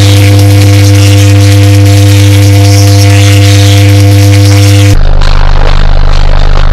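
Heavily distorted, clipped audio: a loud steady electrical buzz over a harsh noisy haze, with faint music for the dancing underneath. About five seconds in, the buzz changes abruptly to a lower, rougher hum.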